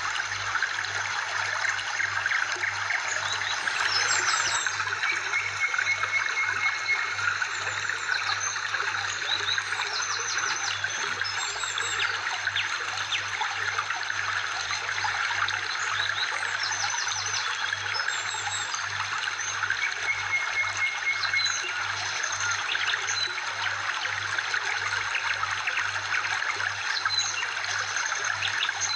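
Steady trickling of running water, with short runs of high chirping notes above it now and then.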